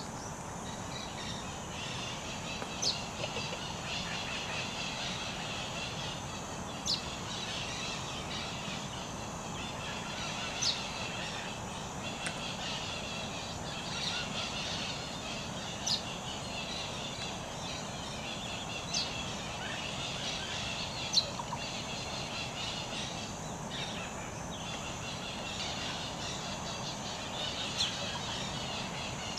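Outdoor ambience of a steady insect and bird chorus, with a short rising chirp repeated every three to four seconds.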